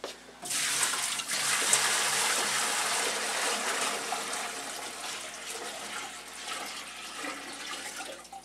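Water poured from a plastic pail into the tank of a CleanStation SRS-DT3 support-removal machine. The gush starts suddenly about half a second in, is loudest for the first few seconds, then slowly grows quieter.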